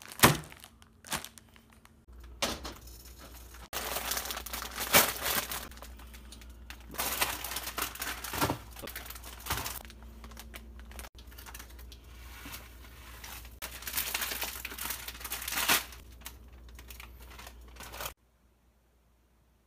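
Plastic instant-noodle packet crinkling and rustling in irregular bursts as it is handled, with a few sharp clicks; it stops suddenly near the end.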